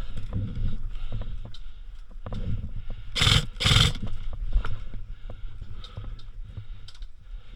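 Rustling and small clicks of gear moving against a body-worn action camera, broken a little past the middle by two loud, harsh rushes of noise about half a second apart.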